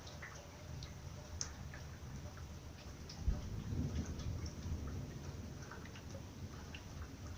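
Thunder: a sharp onset about three seconds in that swells into a low rumble and fades over a couple of seconds, over scattered raindrops dripping and tapping.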